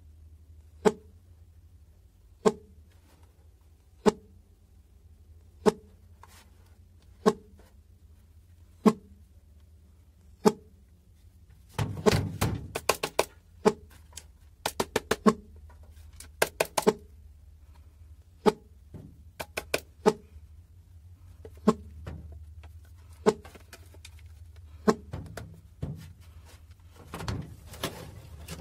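ZW portable Bluetooth speaker with an on-off fault, cutting itself off and on and giving a short pop about every second and a half for the first ten seconds. After that the pops come irregularly among a quick run of clicks and knocks. A faint low hum runs underneath.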